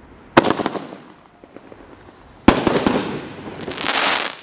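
Consumer aerial fireworks cake firing: a sharp bang about half a second in, trailing off in a spatter of small pops, then a second bang at about two and a half seconds followed by a dense spatter of pops that swells again near the end as the shell breaks into white crackling stars.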